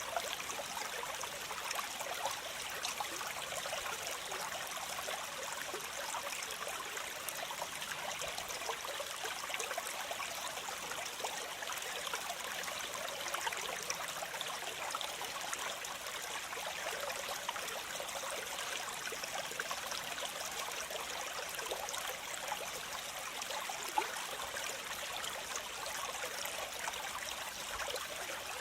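Waterfall: water cascading and splashing in a steady, unbroken rush, mostly high in pitch with little low rumble.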